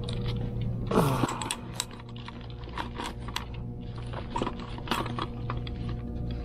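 Irregular light clicks and taps of small plastic parts and hand tools being handled while a hair dryer brush is taken apart, over a steady low hum.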